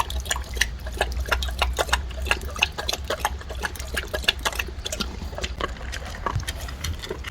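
Labrador retriever lapping water from a bowl: a quick, irregular run of wet splashy laps, several a second.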